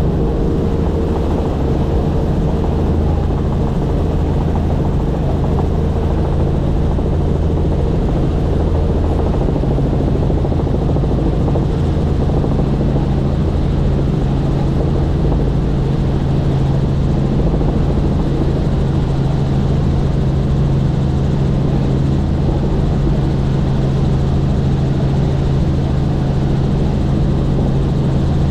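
Helicopter in flight, its rotor and turbine drone running steadily and loud, as heard from on board.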